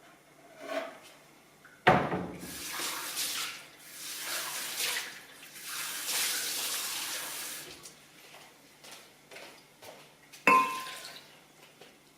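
Kitchen tap water running in three short spells, with a sharp knock about two seconds in and a short ringing clink near the end.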